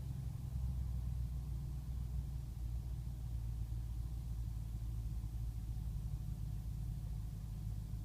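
2005 BMW 645Ci's N62 V8 idling steadily with a slight roughness, a cold-start rough idle with misfiring that has set a check engine light.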